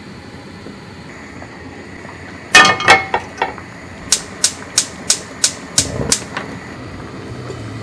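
Gas hob's piezo igniter clicking about three times a second, around seven clicks, as the burner knob is held pressed and turned. A few louder knocks come just before the clicking.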